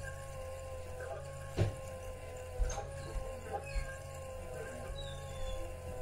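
Small 12 V hot-water circulation pump running with a steady whine over a low rumble, working against air trapped in the line. A few clicks and knocks come through, the loudest about a second and a half in.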